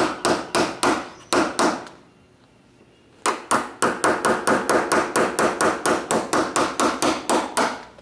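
Ball-peen hammer rapidly striking a chisel held against a car body seam, chipping off old seam sealer: sharp metallic strikes about four or five a second, stopping for about a second partway through and then resuming.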